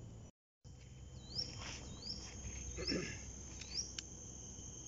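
Insects droning steadily at a high pitch, with a short rising chirp repeating about once a second over it. A sharp click comes about four seconds in, and the sound drops out completely for a moment just after the start.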